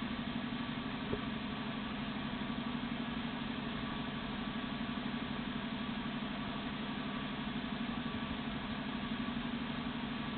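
A steady low motor hum with a fast, even pulse, like an engine idling.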